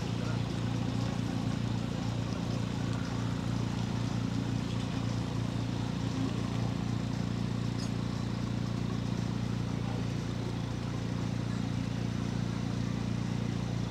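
A steady, unchanging low engine hum, like motors idling.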